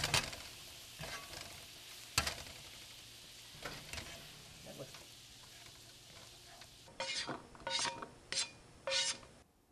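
Scrambled eggs sizzling in a 12-inch Pedrini nonstick frying pan, with a few scattered knocks of utensil on pan. Near the end come four louder scrapes as the eggs are scraped out of the pan onto a plate.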